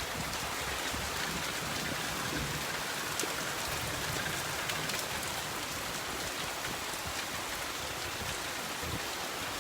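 Steady rain falling, an even hiss with a few scattered drop taps.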